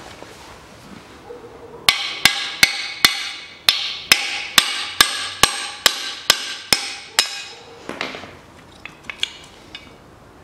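About a dozen sharp hammer blows on the metal spare-wheel winch mechanism, each ringing briefly, coming a little over two a second. They start about two seconds in and are followed by a few lighter clicks near the end.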